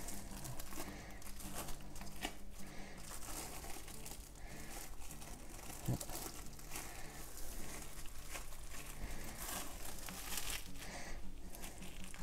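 Plastic cling film crinkling and rustling in irregular bursts as it is rolled and tightened around a meatloaf by gloved hands. A faint steady low hum runs underneath.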